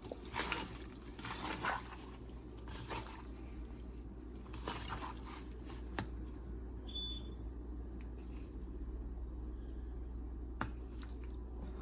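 Hands squishing and rubbing seasoning into wet raw shrimp, soft moist squelches and a few light clicks, over a steady low room hum.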